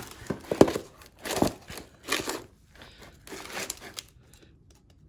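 Packaging crinkling in several short bursts as it is handled and worked open.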